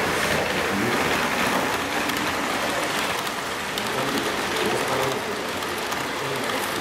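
N-gauge model train coaches rolling around curved track, a steady rattling hiss of small wheels on the rails, with faint hall chatter behind.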